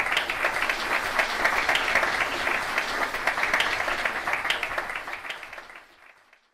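Audience applauding at the end of a talk: steady clapping from many hands that fades out near the end.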